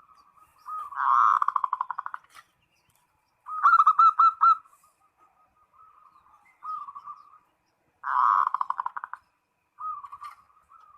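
Zebra dove (perkutut) singing, a call to a rival male: several phrases of rapid, trilled coos, the loudest about a second in and again near eight seconds, with shorter, quieter phrases between.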